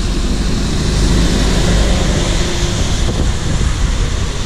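Traffic on a rain-wet road: a city bus and cars passing, with a steady low engine rumble and tyre hiss that swells slightly about a second in.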